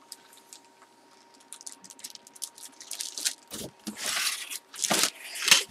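Cardboard box being handled and opened: a run of crinkling, scraping and tearing cardboard and packaging that starts about a second and a half in and grows louder toward the end.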